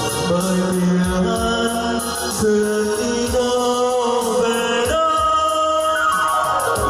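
A man singing into a handheld microphone over a backing music track, in held melodic lines. A long falling slide in pitch comes near the end.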